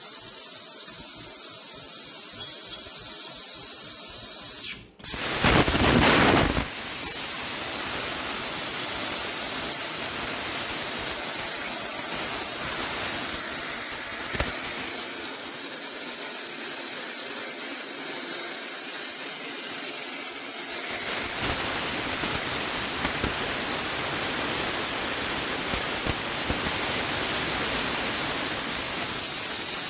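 CNC plasma cutter running a test cut: a loud steady hiss of the torch's air and arc. About five seconds in it breaks off for an instant, then surges louder for a second or two before settling back to the steady hiss.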